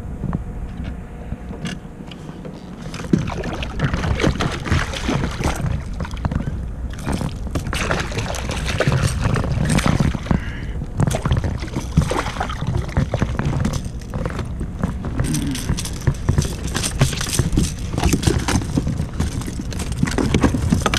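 Hooked striped bass splashing and thrashing at the water's surface beside a kayak as it is brought in. It sounds as irregular, sharp splashes and sloshing that start about three seconds in.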